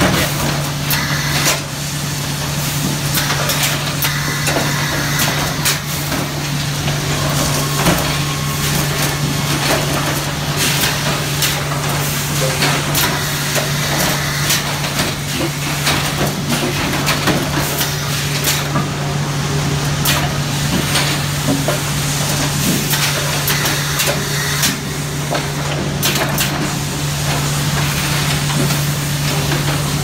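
Sawmill machinery running loudly: a steady low hum from the mill's motors and drives, under constant irregular clacks and knocks of squared timbers and boards banging along chain conveyors and rollers.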